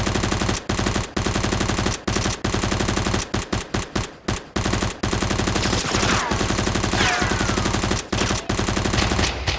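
Rapid automatic gunfire in long sustained bursts broken by a few short pauses. Two brief falling sounds rise over it between about six and seven seconds in.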